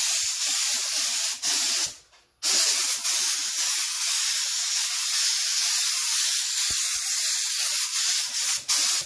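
Gravity-feed compressed-air spray gun spraying automotive clear coat onto wood panels: a steady high hiss of air and atomised paint. It breaks off for about half a second about two seconds in, then runs on and stops near the end.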